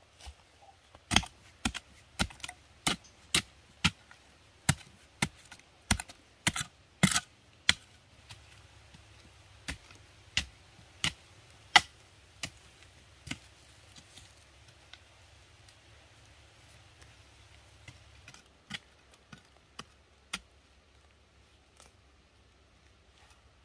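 A series of sharp knocks or chops, about two a second for the first several seconds, then slower and scattered.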